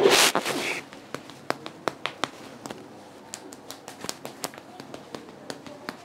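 A loud rush of noise lasting about a second at the start. Then a run of sharp wooden taps, a few a second at an uneven pace, from a wooden percussion tool worked against the muscle of the neck and shoulder to ease spasm of the upper trapezius and levator scapulae.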